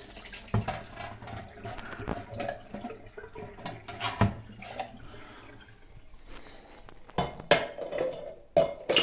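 Plates and cutlery clinking and knocking together in irregular handling, with the loudest clatters about four seconds in and again near the end.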